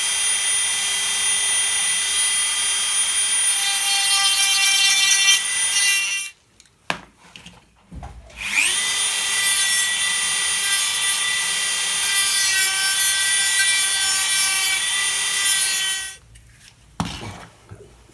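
Electric belt sander running with a high whine while grinding the edges of a kydex sheet. It stops about six seconds in, starts again with a rising whine a couple of seconds later, and runs until it stops near the end, with a few short knocks in the pauses.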